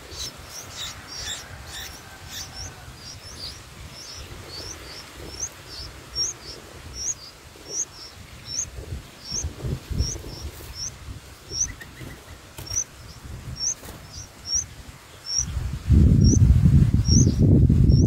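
Bulbul nestlings begging: a steady series of short, high, rising chirps, about one or two a second, crowded together in the first few seconds. A loud low rumble comes in near the end.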